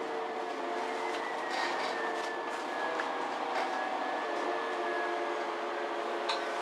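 MAN Lion's City G articulated city bus heard from inside the passenger cabin: steady engine and drivetrain hum with a high whine that slowly drops in pitch, and a few light clicks and rattles.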